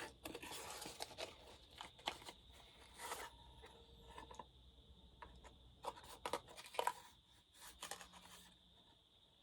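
Small metal parts being handled while a screw is fitted into a chainsaw's intake mounting: scattered light clicks and scrapes.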